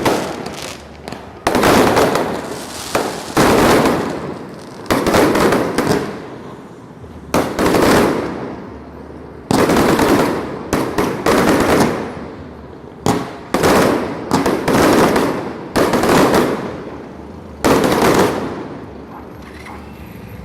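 Fireworks going off: about fifteen sudden loud bangs at uneven intervals, each trailing off in a rumbling crackle over a second or two, the last one shortly before the end.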